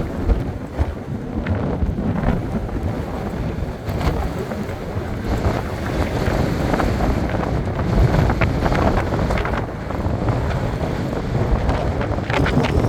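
Strong gusting wind buffeting the microphone, a loud rumble that swells and dips, with a few sharp clicks near the end.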